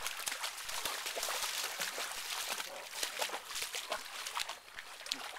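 Water splashing and trickling in a shallow creek as a dog swims across it, a steady hiss of water dotted with small splashes.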